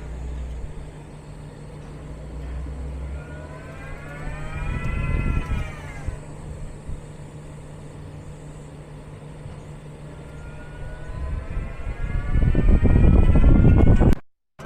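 Electric car's drive motor whining as the car pulls away and brakes to a stop twice, the whine rising then falling in pitch each time, over a steady low hum, with a louder rumble near the end.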